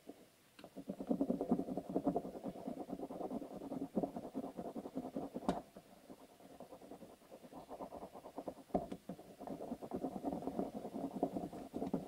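Pencil rubbed rapidly back and forth over paper laid on a coin, taking a rubbing of its face: a fast, dense scratching that eases off for a moment about six seconds in, then resumes. A few sharp taps are heard along the way.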